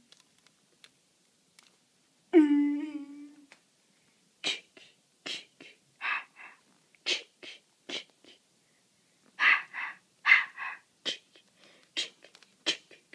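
A person's voice gives one short pitched cry, then a string of short breathy hissing and puffing mouth noises, one or two a second: sound effects voiced for a plush-toy fight.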